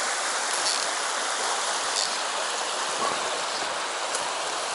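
Shallow mountain stream rushing over rocks in a riffle: a steady, even rush of water, with a few faint clicks.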